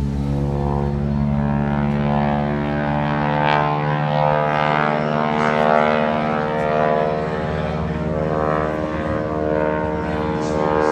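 Propeller engine of a small aerobatic airplane droning overhead, a steady pitched drone whose higher tones waver as the plane manoeuvres.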